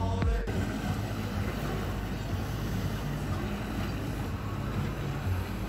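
A music snippet cuts off about half a second in. A small motorboat's engine then runs slowly with a steady low drone.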